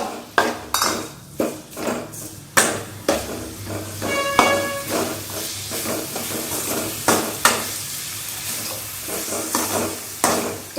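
A ladle stirring and scraping through thick potato masala in a hot pan, with a light sizzle, as gram flour batter is mixed in. It knocks against the pan in quick, uneven strokes, and a short metallic ring comes about four seconds in.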